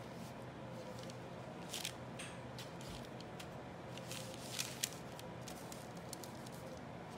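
Paper towel crinkling and rustling as it is pressed onto and lifted off oven-baked chicken wings with chopsticks, in a handful of short crackly bursts. A faint steady hum runs underneath.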